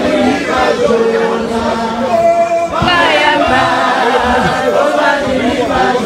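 A crowd of people singing together without instruments.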